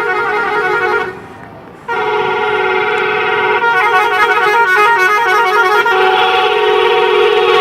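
Bus 'telolet' multi-tone musical horn playing a rapid tootling tune of changing notes. It breaks off about a second in, resumes less than a second later, and changes pattern twice before stopping near the end.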